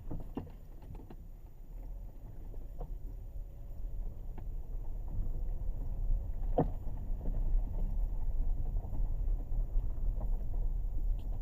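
Low rumble of a 2017 Kia Sorento heard from inside the cabin as it moves along, growing louder a few seconds in. A few faint clicks sound through it, with one sharper click about six and a half seconds in.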